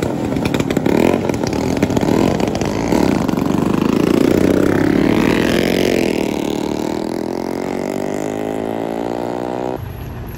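Small motorcycle engine running and revving as the bike moves off, its pitch rising and then falling steadily while it fades. The sound cuts off suddenly near the end.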